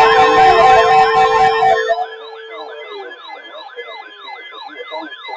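Siren sounds: a loud, layered wail with a steady underlying tone cuts off sharply about two seconds in. A quieter siren follows, rapidly repeating falling sweeps about two and a half times a second.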